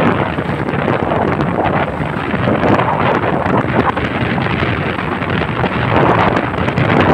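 Steady wind buffeting on the microphone of a moving vehicle, with road noise underneath.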